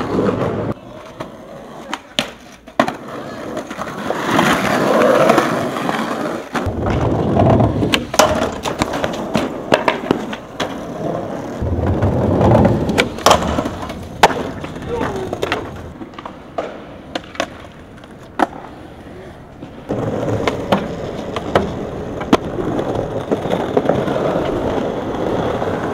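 Skateboard wheels rolling over concrete and pavement, broken by many sharp clacks of the board popping, landing and striking ledges, over several separate runs.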